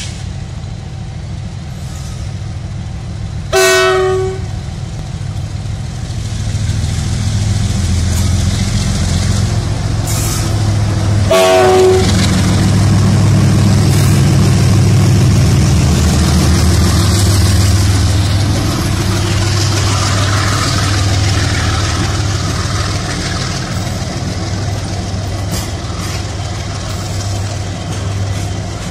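Indian Railways WDG4G diesel-electric locomotive, with a GE Evolution-series 12-cylinder engine, hauling a loaded BCN covered-wagon freight train past. The steady engine rumble grows louder as the locomotive draws level. Its horn sounds two short blasts, about 4 seconds in and again about 12 seconds in, followed by the rolling rattle of the passing wagons.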